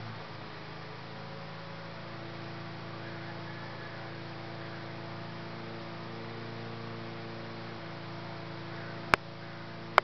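Steady low hum with a few faint steady tones, and one sharp click about nine seconds in.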